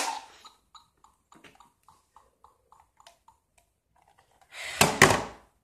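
Electronic toy blaster morpher: a sharp click, then a run of short beeps at one pitch, about four a second for three seconds, and a loud noisy burst of sound near the end.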